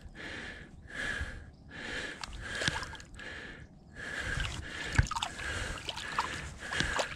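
Water sloshing and dripping around a largemouth bass held by the lip and worked in the shallows to revive it before release, with a few sharp splash ticks. Under it, heavy breathing rises and falls about once a second.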